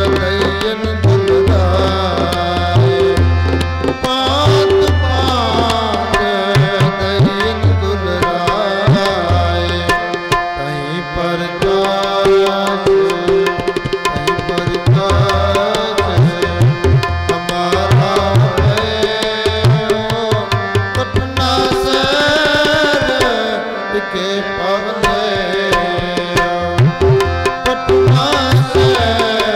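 Sikh kirtan: two RINA harmoniums playing a sustained melody, with a voice singing in gliding phrases over them. A tabla keeps a steady beat, and its bass drum rings deeply through the first part.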